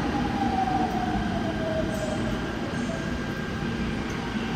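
Seoul Subway Line 5 electric train slowing to a stop at the platform: a whine falls in pitch over the first two seconds over the steady rumble of the wheels on the rails.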